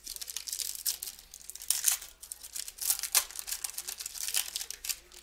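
Crinkly trading-card pack wrapper being torn open and crumpled, a dense run of crackling rustles throughout, loudest about two and three seconds in.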